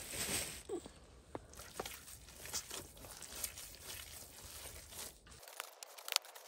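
Hands kneading raw minced meat and spice paste for çiğ köfte in a steel tray: soft, irregular squishing with scattered small sticky clicks.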